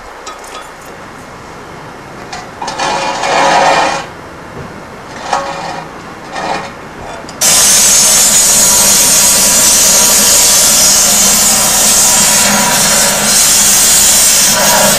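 A few short noisy bursts, then about halfway through a handheld gas torch comes on and burns with a loud, steady hiss.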